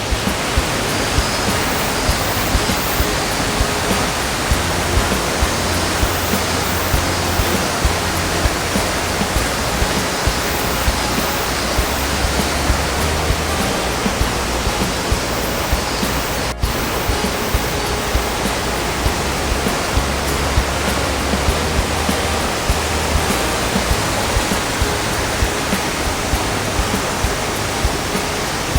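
Waterfall's steady, loud rush of falling water, cutting out for an instant about halfway through.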